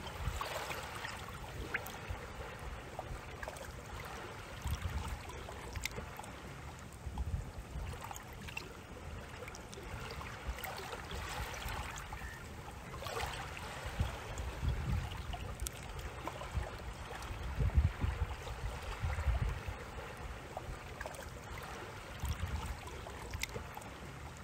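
Outdoor harbour ambience: gusts of wind rumbling on the microphone, coming and going irregularly over a steady rush of noise.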